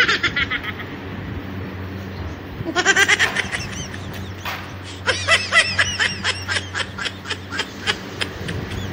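High-pitched, rapid giggling laughter in short fits: briefly at the start, again about three seconds in, then a longer run from about five seconds to near the end. A steady low hum sits underneath.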